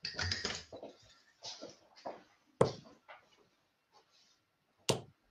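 Two steel-tip darts striking a bristle dartboard with sharp thuds, one a little past halfway and one near the end, about two seconds apart. Before them comes a short rustle of darts being pulled from a board.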